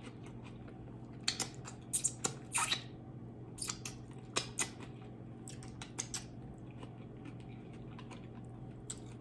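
Close-up mouth sounds of eating: wet chewing and lip-smacking clicks in short clusters from about a second in to about six seconds in, over a steady low hum.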